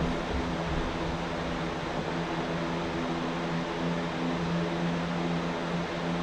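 Steady mechanical hum: a low, even drone with an even hiss behind it, unchanging throughout.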